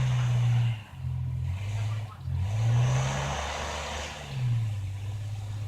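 Car engine revving up and down as it spins its wheels in snow, the car stuck. The revs hold, drop off just before a second in, then climb and fall twice, with a hiss that swells along with them.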